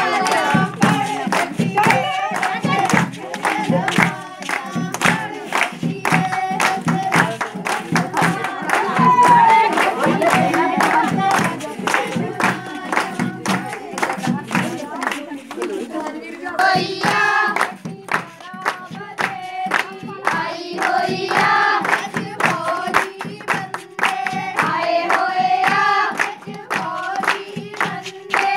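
A group of women singing a Punjabi folk song together, with steady rhythmic hand-clapping keeping the beat.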